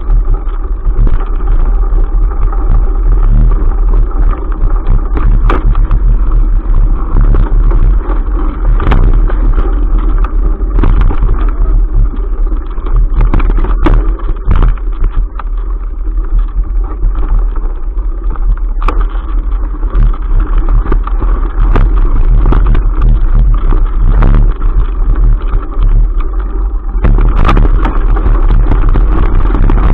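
Mountain bike rolling fast along a dirt forest trail, heard through a shaking action camera: a loud, steady low rumble of wind and tyre noise on the microphone, broken by many sharp knocks and rattles as the bike and camera jolt over bumps and roots.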